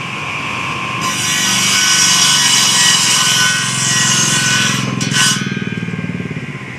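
Electric woodworking saw running, then cutting through a piece of wood from about a second in to about five seconds in, with a dense, hissing cutting noise over the motor's steady whine.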